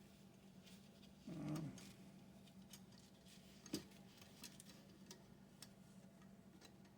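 Faint, scattered light clicks and ticks of small metal fare-box parts being handled and fitted, over a steady low hum. A brief murmur from the worker about a second in, and one sharper click a little before the four-second mark.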